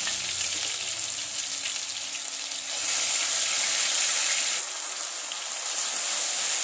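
Ginger-garlic paste and green chilli paste sizzling in hot oil in a steel kadai, an even hissing that grows louder about three seconds in, dips briefly, then rises again near the end.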